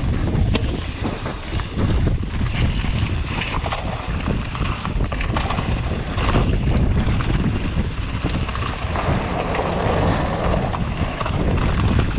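Wind buffeting the microphone during a fast run down a trail on a downhill mountain bike, with a steady rumble and many small knocks and rattles as the bike goes over rough ground.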